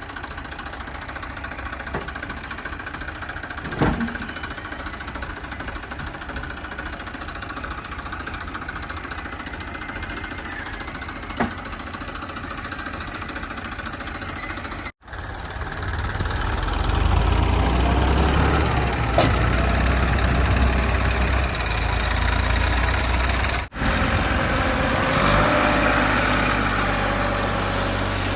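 JCB 3DX backhoe loader's diesel engine running steadily, with a couple of short knocks. After a brief dropout about halfway through, it becomes louder and deeper, as if working harder.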